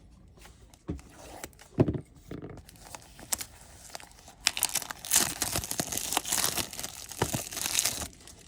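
Sealed trading card box being torn open by hand: a few sharp rips and clicks, then about three and a half seconds of dense tearing and crinkling of the packaging from about halfway through.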